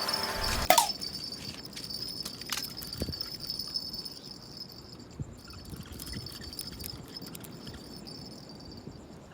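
Insects trilling with a steady high pitch that breaks off briefly and resumes. Background music ends with a sharp click a little under a second in.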